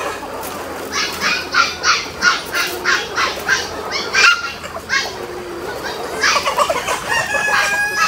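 Chickens squawking in a quick run of repeated calls, about three a second for some three seconds, then more clucking about six seconds in and a longer drawn-out call near the end.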